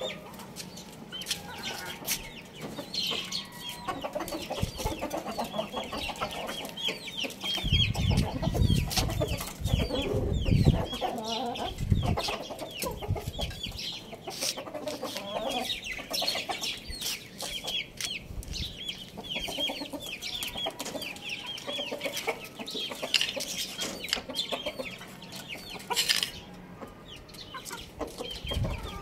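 Domestic chickens clucking, over a steady chatter of quick, high-pitched chirps. Low thumps and rumble come in for a few seconds about a third of the way through.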